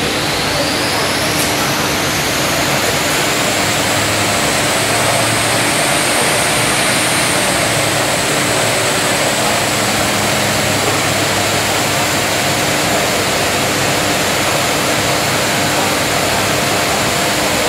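1999 Ford Focus 1.8's engine running hard on a rolling road, with the rollers and wheels spinning. A high whine rises over the first few seconds and then holds steady over a loud, even rush of noise.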